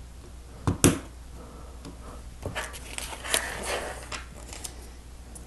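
Small plastic Lego pieces being handled and pressed together: two sharp clicks a little under a second in, then lighter scattered clicks and rustling.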